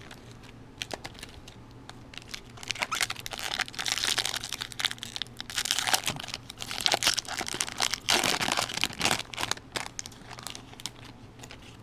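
Foil wrapper of a Topps jumbo baseball card pack crinkling and crackling as it is torn open and the cards are pulled out. The sound is sparse at first, dense and loudest through the middle, and thins out near the end.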